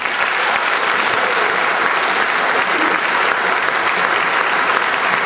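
Convention audience applauding, a dense, steady clapping that holds at an even level.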